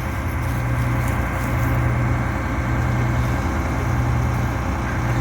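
Combine harvester's diesel engine running steadily, a constant low hum.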